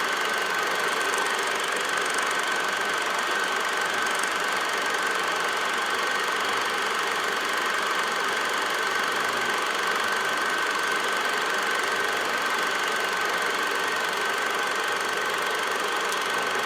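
Old film projector running: a steady mechanical whir with a thin, steady high whine on top.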